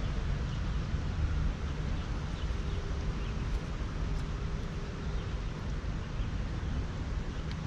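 Steady wind rumble on the microphone over outdoor background noise.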